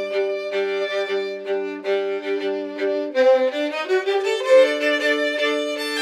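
Violin duet playing a Bulgarian folk melody in long bowed notes in harmony. The lower part holds one note through the first half, and both parts move to new notes about three seconds in.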